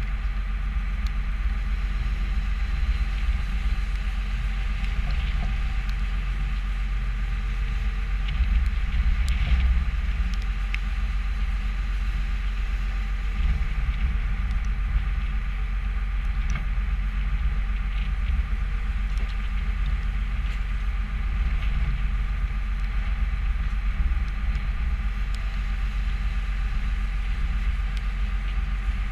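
New Holland skid steer's diesel engine running steadily, with a few faint knocks through it.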